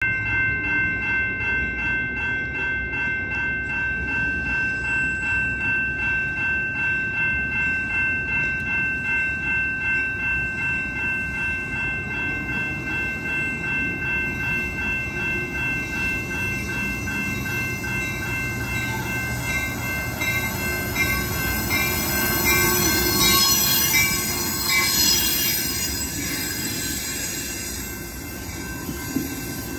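Grade-crossing warning bell ringing in a steady pulse of about two strokes a second. From about twenty seconds in, a train of Amtrak Venture coaches grows louder as it rolls slowly through the crossing, its wheels squealing on the curved track.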